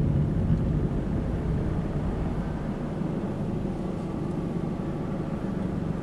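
Car engine and road noise from a slowly moving car, easing off and quieting as the car slows to a stop.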